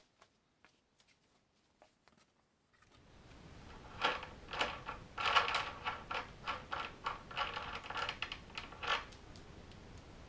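Small metal parts clinking and rattling against each other in a quick, irregular run of light metallic knocks lasting about five seconds, starting a few seconds in. Before it there are only a few faint clicks.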